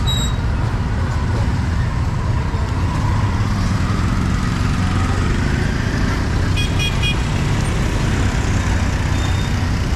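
Street traffic of scooters, motorbikes and tuk-tuks passing, a steady low engine rumble. A horn beeps several times in quick succession about seven seconds in.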